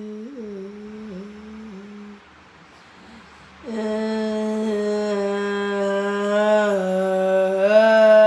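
A voice humming long held notes: a soft, wavering hum for about two seconds, a pause of a second and a half, then one loud, steady, sustained note with a slight shift in pitch near the end.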